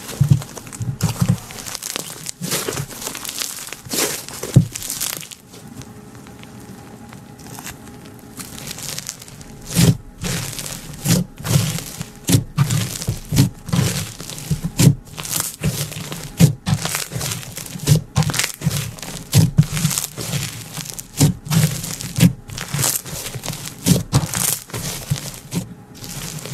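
Pink textured slime squeezed, pressed and pulled by hand, giving irregular crackling pops and squishes, with a quieter stretch about six to nine seconds in.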